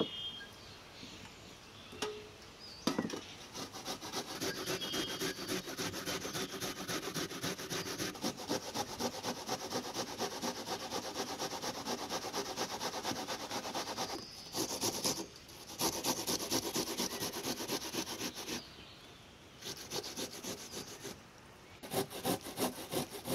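Onion being grated on a metal box grater: a long run of rapid, even rasping strokes. The strokes break off briefly a few times, including a longer pause near the end, then start again.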